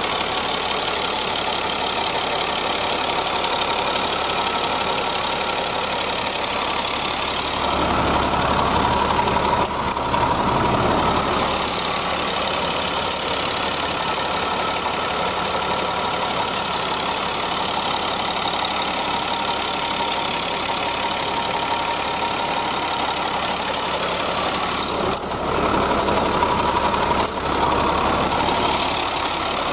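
A 2002 GMC C7500 dump truck's Caterpillar diesel engine idling steadily, a little louder for a few seconds twice.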